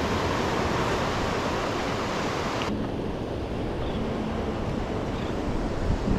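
Ocean surf breaking and washing up a sandy shore, with wind on the microphone. About two and a half seconds in, the sound changes abruptly to a duller, less hissy wash.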